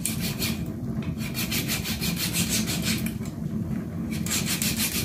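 A knife sawing through a plucked chicken's leg at the foot joint, rasping back and forth in quick strokes that come in a few short runs with brief pauses between them.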